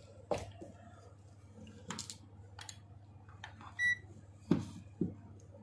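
Handling clicks and light knocks on a workbench, then one short high electronic beep from a handheld digital multimeter as it is set up to measure DC voltage, followed by two soft thumps.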